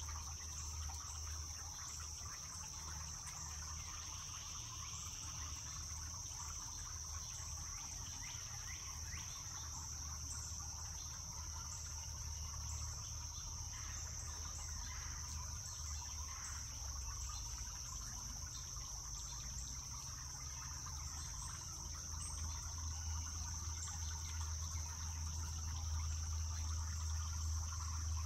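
Steady, high-pitched chorus of insects trilling without a break, over a low rumble that grows a little louder near the end.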